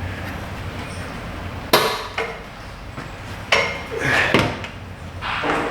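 A sharp knock about two seconds in, then a few clattering clinks of hard parts and tools being handled during hands-on repair work.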